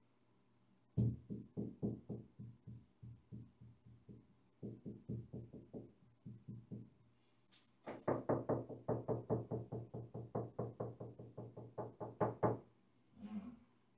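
Knuckles rapping quickly on a large-tile wall, about four to five knocks a second in three runs, the last and longest run the loudest: knocking on the tile to find a stud behind it by sound.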